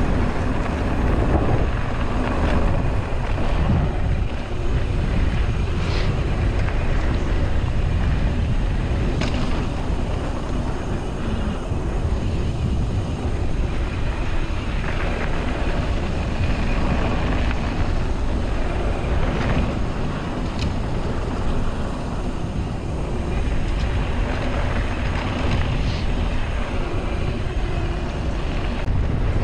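Wind buffeting the microphone of a camera carried on a moving mountain bike: a steady rush of noise strongest in the low end, with the rolling bike's rattle and occasional sharp clicks.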